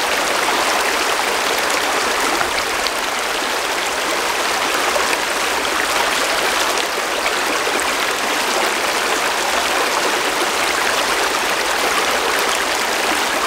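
Small rocky creek running, a steady rush of water over stones.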